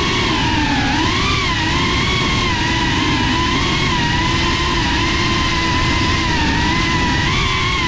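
Motors and propellers of a Cinelog 35 cinewhoop FPV drone whining in flight, the pitch wavering up and down with the throttle.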